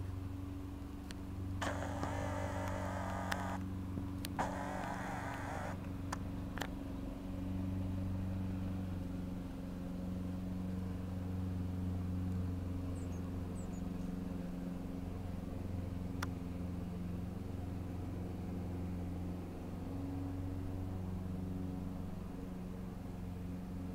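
A steady low motor hum, engine-like, runs throughout. Two short hissy bursts come about two and four and a half seconds in, with a few faint clicks.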